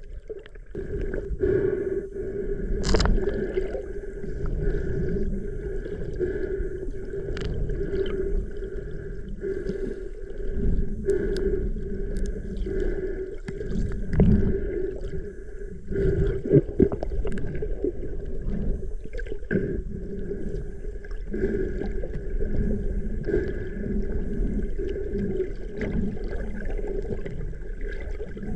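Underwater sound picked up by a diving camera: a steady, pulsing hum with two held tones under irregular low gurgling, and a few sharp knocks.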